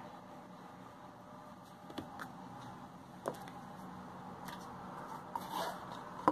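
Clear plastic food tubs and a snap-on lid being handled: a few light plastic clicks and knocks over a faint steady hum, with a short rustle and then a sharp click near the end.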